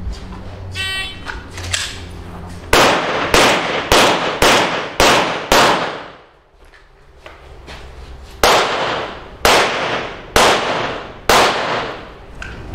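Pistol shots at a practical shooting stage: six shots in quick succession, about two a second, then after a pause of about three seconds four more, about one a second. Each shot leaves a short ringing tail.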